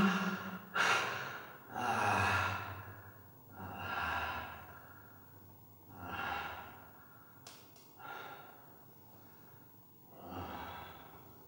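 A man breathing heavily in long, sighing breaths. The first breaths are loud and come quickly, then they slow to about one every two seconds and grow fainter.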